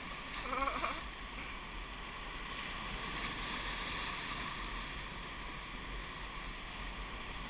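Rushing whitewater of a river rapid around an inflatable raft, a steady hiss of churning water.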